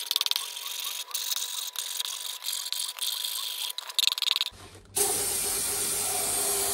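A hand file rasping in repeated strokes across the edge of a plastic waste-pipe fitting, chamfering it. About five seconds in, an aerosol can of lubricant starts spraying into the fitting with a steady hiss.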